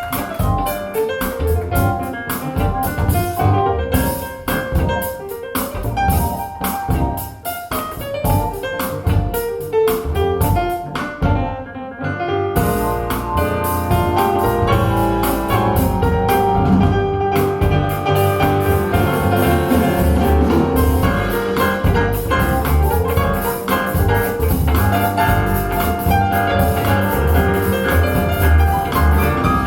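Music with piano, played back through a pair of PSB Alpha P5 bookshelf speakers as a listening demo. About twelve seconds in it fills out with a heavier, steady bass and fuller accompaniment.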